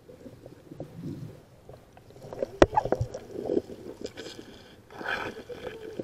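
Muffled underwater water movement, sloshing and bubbling, with scattered small knocks and one sharp knock about two and a half seconds in. A brief rush of bubbling noise comes near the end.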